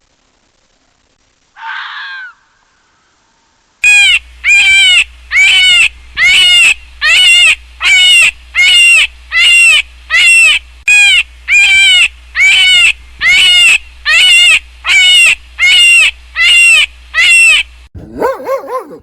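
An animal call repeated about twenty times in a steady, even rhythm, a little faster than one a second. Each call is loud and high-pitched with an arched rise and fall. Near the end a lower-pitched animal call takes over.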